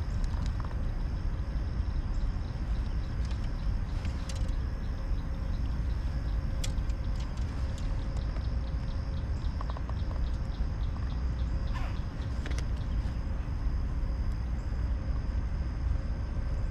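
Handling noise from a kayak: scattered light clicks and taps of fishing tackle over a steady low rumble.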